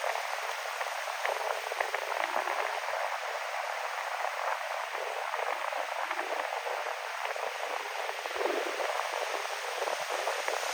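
Ocean waves and wind making a steady rushing hiss, with fine crackle throughout and no deep rumble.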